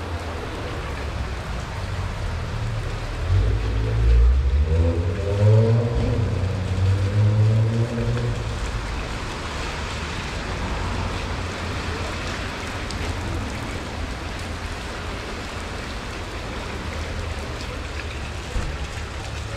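Heavy rain pouring steadily onto a paved city street, with a low rumble under it. From about three seconds in, a louder pitched sound rises and falls for some five seconds over the rain.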